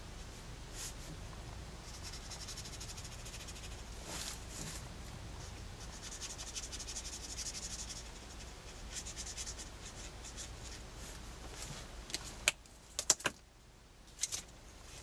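Marker nib scratching and rubbing across sketchbook paper in a run of uneven strokes. Near the end come a few sharp clicks and taps as pens are set down on the table and pencils picked up.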